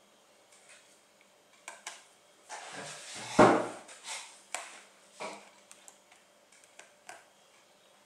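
Precision screwdriver working the screws of a laptop's hard-drive bracket: scattered light clicks and scrapes of metal on metal, with a louder knock about three and a half seconds in.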